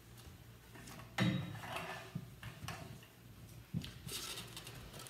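Handling noises at a pulpit as the preacher settles in: a few separate knocks and clicks, the loudest about a second in, and a brief rustle near the end.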